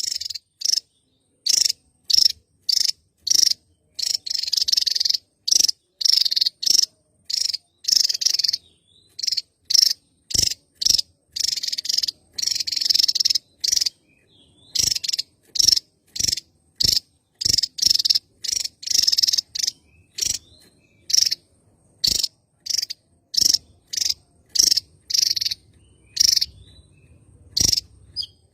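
Javan tesia singing: a long run of short, sharp, high notes, one after another about every half second, broken by a few longer rapid chattering runs.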